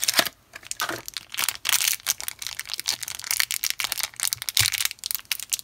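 Packaging being opened by hand: a cardboard toy box pulled apart, then a crinkly plastic blind-bag wrapper crumpled and torn open, in a dense run of irregular crackles.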